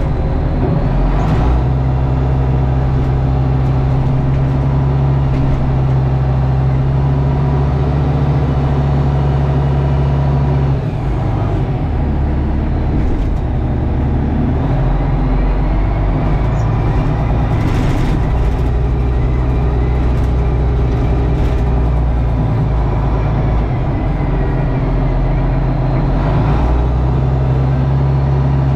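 Tractor engine running steadily under load while plowing compacted snow and ice, its note dropping about a third of the way in and rising again near the end as the load changes, with a few short clunks.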